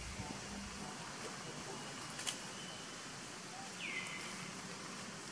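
Faint outdoor ambience with a steady hiss. A single sharp click comes about two seconds in, and a short high chirp falls in pitch about four seconds in.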